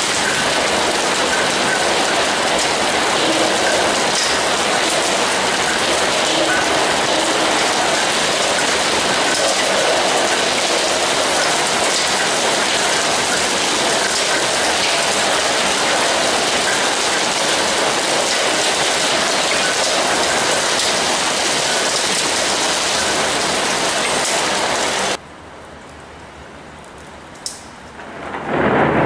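Steady, loud downpour of rain, an even hiss. About 25 s in it cuts off abruptly to a much quieter hush with a single click. Near the end a rising rumble of thunder begins to build.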